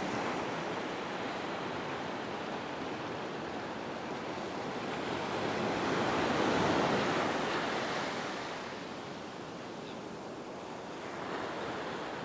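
Ocean surf washing onto a beach, a wave swelling and breaking about six to seven seconds in and then easing.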